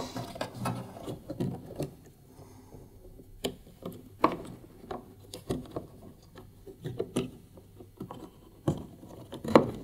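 Wiring connectors and cables being handled and pushed onto a tumble dryer heater's terminal block: scattered small clicks with soft rustling between them, the sharpest clicks about four seconds in and near the end.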